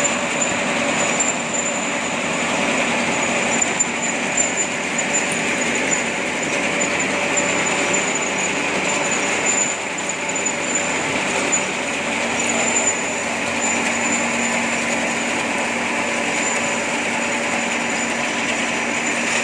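Plastic slat-chain conveyors running empty, driven by electric gear motors: a steady mechanical clatter and hum with a thin high tone over it, and a low hum that grows stronger about two-thirds of the way through.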